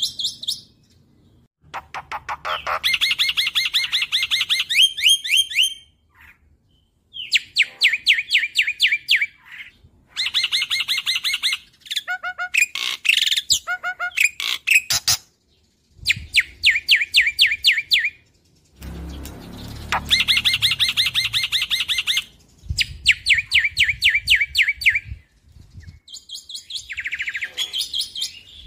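Black-winged myna (jalak putih) singing vigorously in rapid-fire phrases of sharp, evenly repeated notes. Each phrase lasts two to four seconds, with short pauses between them.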